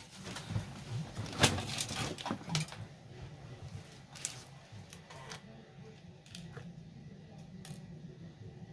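Small objects and packaging being handled by hand: scattered clicks and taps, loudest in the first three seconds, then a few faint clicks.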